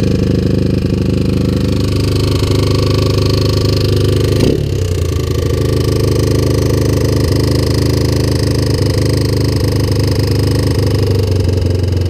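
1987 Honda TRX250X's single-cylinder four-stroke engine running steadily, its pitch briefly dropping and recovering about four and a half seconds in.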